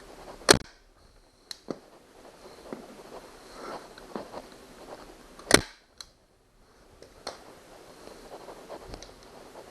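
Harbor Freight FastenPro manual 3-way tacker firing twice, about five seconds apart, each a sharp snap as a staple is driven through vinyl into plywood. Smaller clicks and handling noise fall between the shots.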